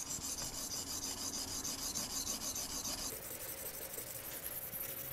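A soaked 220-grit Boride CS-HD silicon carbide stone on a guided rod sharpener is stroked along a 440C steel knife's bevel: a continuous abrasive scraping rasp of rough grinding to set the edge.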